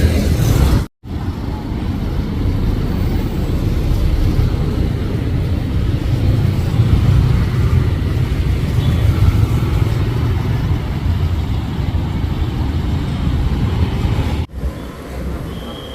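Road traffic: a steady rumble of cars and motorbikes passing, broken by two brief sudden dropouts, about a second in and near the end.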